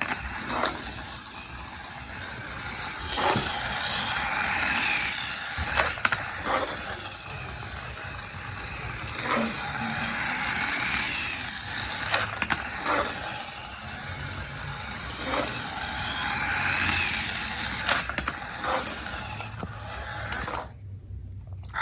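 Small battery-powered toy race car running laps on a flexible plastic track, its electric motor whining and swelling louder and softer as it passes, with sharp clicks every few seconds from its wheels on the track pieces.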